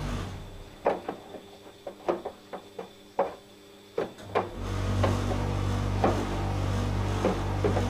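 Domestic laundry machine: the drum motor's low hum stops, and about a dozen irregular light knocks follow from the drum. About four and a half seconds in, the motor hum starts up again, with a few more knocks.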